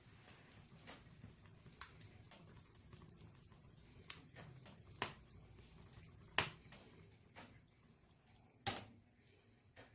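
Wood fire burning in a fireplace: burning logs crackling with irregular sharp pops, with two louder pops in the second half, over a faint low hiss of the flames.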